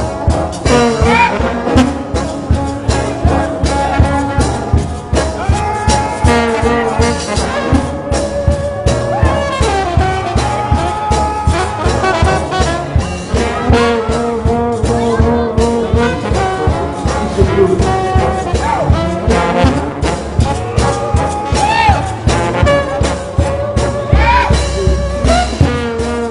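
Music with a brass horn section playing held notes over a steady, evenly spaced drum beat.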